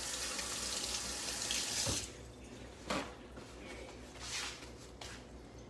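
Kitchen faucet running into a stainless-steel sink, turned off about two seconds in, followed by a few light knocks.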